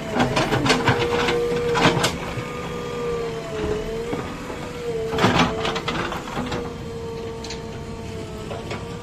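JCB 3DX backhoe loader's diesel engine running under load with a steady whine that dips and rises slightly as the backhoe arm moves. Bursts of clatter and scraping from the bucket working the soil come in the first two seconds and again about five seconds in.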